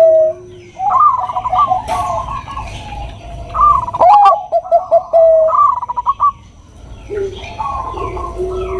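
Bangkok-line zebra doves (perkutut) cooing in repeated rolling phrases, with more than one bird overlapping at times. A run of short, evenly spaced coo notes comes about halfway through, and a sharp click sounds about four seconds in. Faint chirps of smaller birds sit in the background.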